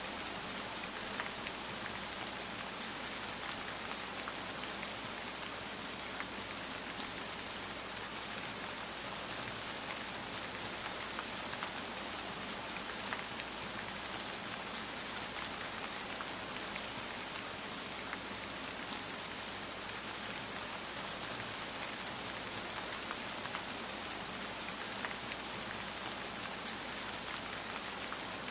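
Steady rain with dense, fine drop impacts, holding an even level.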